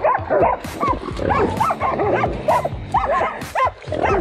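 Hunting dogs barking and yipping rapidly at a caught hog, several short barks a second.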